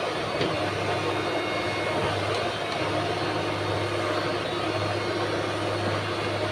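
Heavy machinery engine running steadily, with a constant low hum under broad mechanical noise and a faint click or two.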